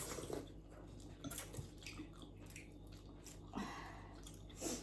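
A person eating close to the microphone: chewing and biting on mouthfuls of spicy ramen and momo, with a few short wet mouth sounds scattered through.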